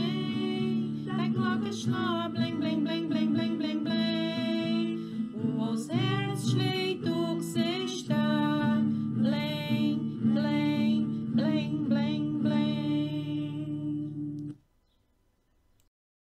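A Christmas song sung in Pomeranian over acoustic guitar. The music stops about fourteen and a half seconds in, leaving near silence.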